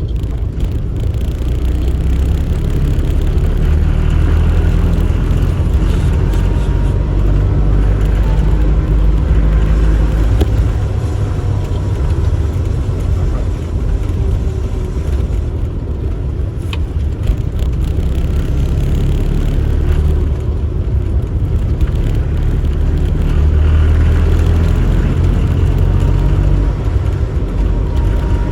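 Fiat Cinquecento running on the road, its engine giving a steady low drone whose pitch shifts up and down.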